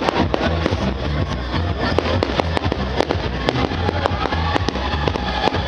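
Fireworks going off in rapid, irregular cracks and pops, over music with a heavy bass beat.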